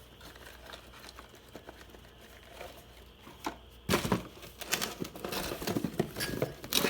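Plastic packaging crinkling and rustling as parts are handled. It is quiet for the first few seconds apart from a few small clicks, then turns into loud, busy crackling about four seconds in.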